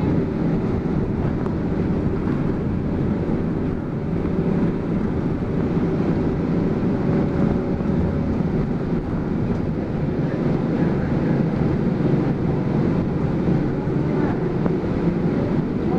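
Steady rumble of a city bus in motion, heard inside the passenger cabin: engine drone and road noise.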